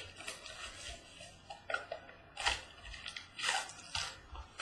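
Foil trading-card packs and cardboard boxes being handled: a run of short rustling, crinkling swishes, the loudest about two and a half and three and a half seconds in.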